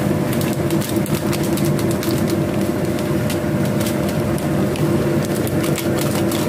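Pot of sayur lodeh vegetable soup boiling hard: a dense, steady bubbling with many small pops over a low rumble.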